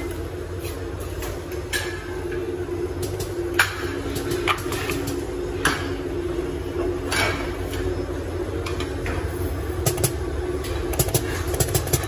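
Factory machinery running with a steady low hum, overlaid by irregular sharp clicks and knocks.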